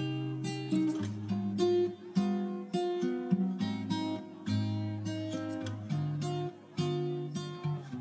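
Background music: an acoustic guitar playing a melody of plucked notes and chords.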